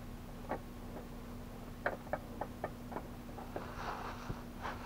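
Spin-on oil filter being screwed onto its mounting by hand: a few irregular light clicks and a short rustle near the end as the hand turns it, over a faint steady hum.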